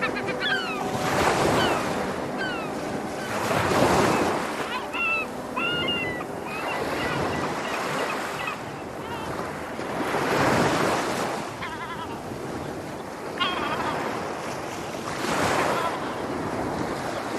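Sea waves washing onto the shore in surges every few seconds, with seagulls calling over them: a few short calls in the first half and a couple more about two-thirds of the way through.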